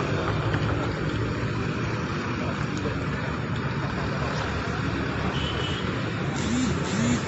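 Steady street traffic noise, with motorcycles and cars running past.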